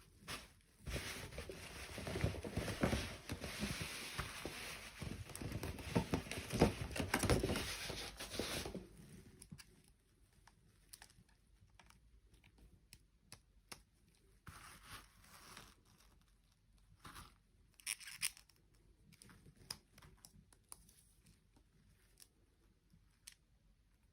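Toy packaging being torn and crinkled for about eight seconds, then handled more lightly with scattered clicks and short rustles.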